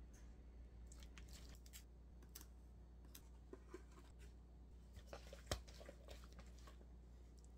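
A spoon stirring and scraping broccoli salad in a plastic mixing bowl: faint crunchy scrapes and soft clicks, with one sharper knock about five and a half seconds in.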